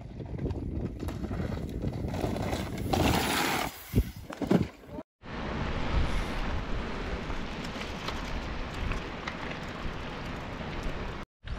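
Mountain bike descending a rough dirt and rock trail: wind rushing over the camera microphone, with tyres rattling over the ground. It is a steady noise with no engine tone, cut off abruptly about five seconds in and again near the end.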